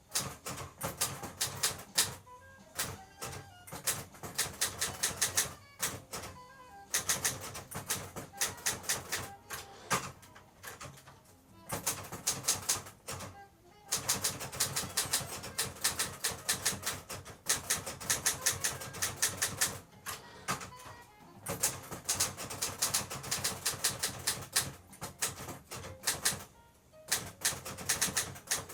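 Olivetti Linea 88 manual typewriter being typed on: quick runs of sharp key strikes in bursts, broken by short pauses.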